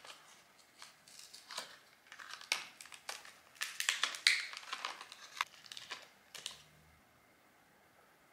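Packaging of a Dars chocolate bar being opened by hand: quick crinkling and crackling of the box and a piece's wrapper, loudest about halfway through. It stops about a second before the end.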